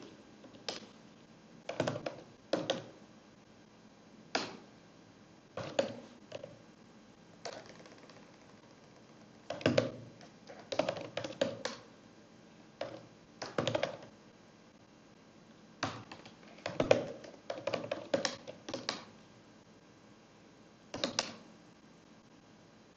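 Computer keyboard being typed on in short bursts of a few keystrokes, separated by pauses of a second or two.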